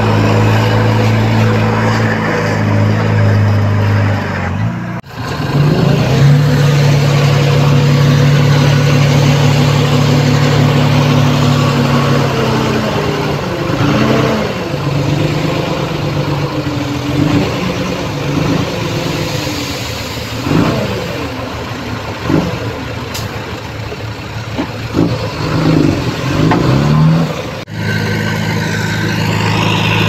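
Diesel engines of a crawler bulldozer and a dump truck running steadily. In the second half the engine note repeatedly rises and falls as it revs, and the sound changes abruptly twice.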